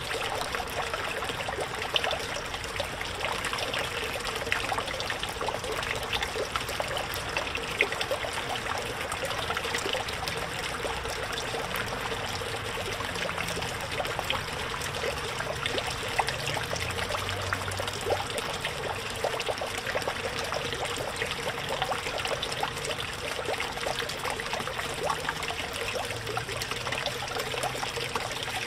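Small pond fountain splashing and trickling steadily onto the water surface, a continuous patter of little drops.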